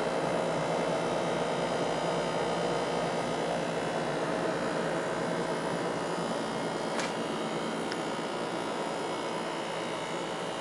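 Brastemp Ative BRM48 refrigerator running with a steady hum, a new noise that the owner finds excessive. A faint click about seven seconds in.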